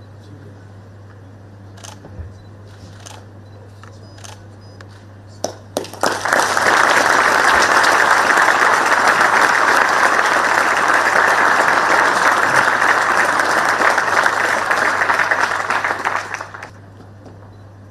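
A few scattered camera shutter clicks, then an audience applauding, starting about six seconds in, holding steady for about ten seconds and dying away near the end.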